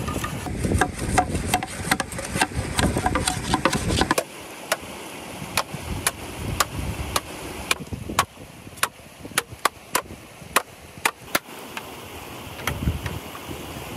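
A machete blade striking a bamboo pole, giving sharp, separate wooden knocks about two a second from a few seconds in. Before that there is a loud rushing noise with quick clicks.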